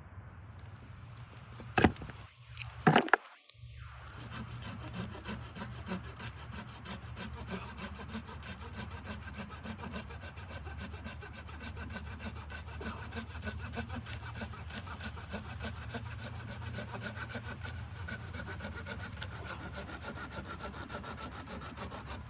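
Wood being sawn in a steady run of rasping strokes, after two sharp knocks near the start.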